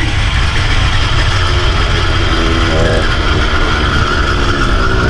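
Small engine of a motorised bicycle kit running as the bike is ridden, its pitch shifting up and down over a heavy low rumble.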